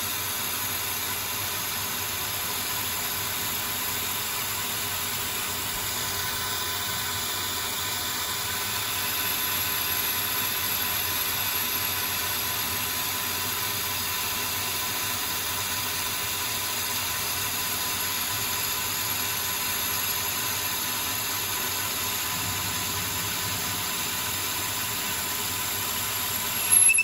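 CNC lathe spindle turning a D2 tool steel part at 625 rpm while a boring bar cuts inside the bore, with the hiss of spray-mist coolant; a steady machining noise with a brief louder sound at the very end.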